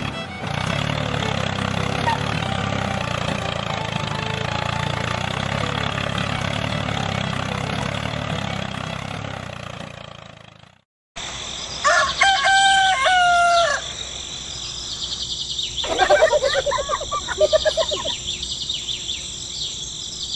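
A steady engine-like running sound fades out about halfway through. After a brief silence, a rooster crows twice over a steady high insect chirring.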